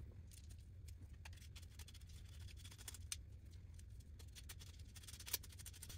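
Faint scattered clicks and taps of small metal parts, screws and a screwdriver being handled while bolting a brace onto an aluminium robot frame, over a low steady hum.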